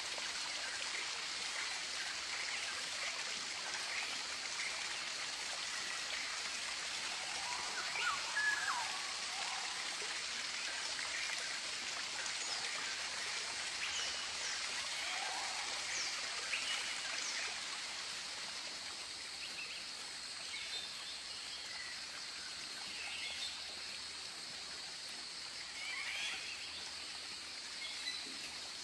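Tropical birds calling, scattered short chirps and falling whistles, over a steady high hiss. The call is a little louder about eight seconds in.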